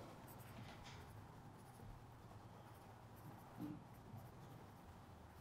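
Near silence: faint marker strokes on a flip chart pad over quiet room tone, with one brief faint low sound about three and a half seconds in.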